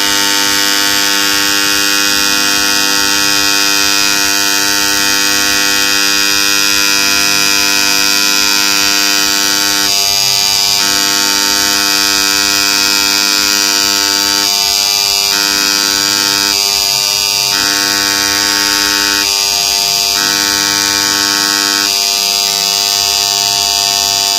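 Engraving machine running while it engraves a logo: a loud, steady electric buzz made of several constant tones. From about ten seconds in, part of the buzz cuts out and comes back several times, a second or so each time, as the machine moves.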